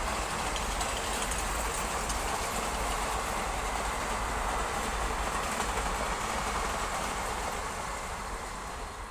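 Indian Railways train running past on the rails, a steady rumble of wheels on track that begins to fade near the end.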